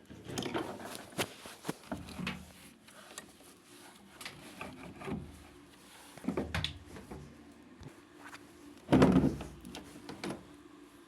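Irregular knocks, clicks and rubbing of parts being handled, with a louder cluster of knocks about nine seconds in.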